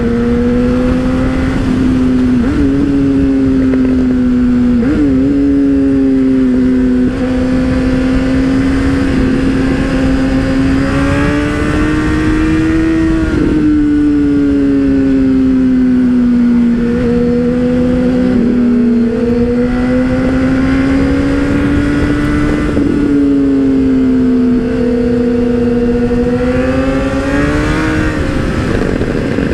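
Motorcycle engine running at a steady cruising speed, its note rising and falling gently as the revs change, over heavy wind rush. A couple of short swoops in pitch come a few seconds in.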